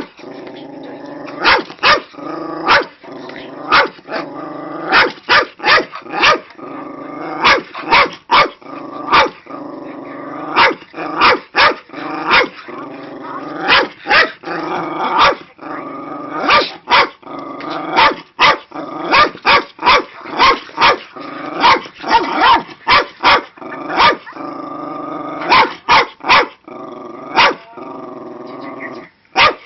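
Cairn terrier barking angrily in short sharp barks, one or two a second and sometimes in quick pairs, with a steady growl between them.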